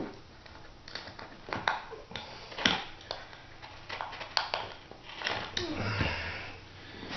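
Scattered clicks, taps and rustles of sheet vinyl flooring being handled and trimmed with a utility knife.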